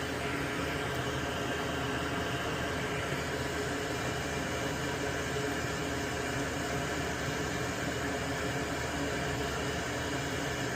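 Fume extraction vent fan running with a steady, unchanging airy hum.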